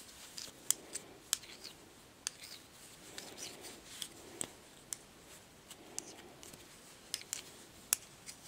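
Metal knitting needles clicking and tapping against each other at an irregular pace as stitches are worked in one-purl, one-knit ribbing, with a soft rustle of yarn between the clicks.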